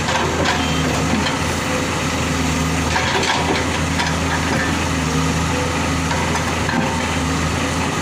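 Komatsu 210 excavator's diesel engine running steadily, with a few knocks and crunching sounds from the machine working.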